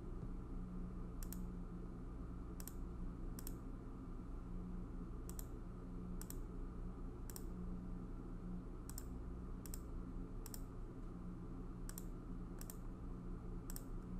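Computer mouse clicking about a dozen times at irregular intervals, roughly one a second, as items are picked from drop-down lists. A steady low hum sits underneath.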